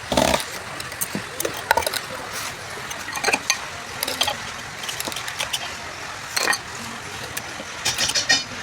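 A hammer tapping nails into a wooden power-loom part, the pagadi billa, to tighten it: irregular sharp knocks about a second apart, then a quick run of taps near the end.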